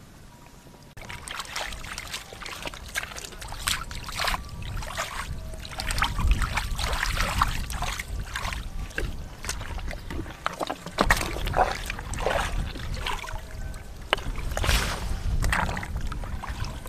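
Water splashing and sloshing irregularly as hands work through shallow, muddy water, with a run of separate splashes.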